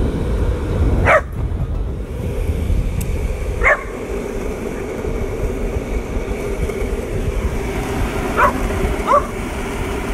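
A dog giving four short, sharp yips, two spread over the first few seconds and two in quick succession near the end, over a loud steady low rumble.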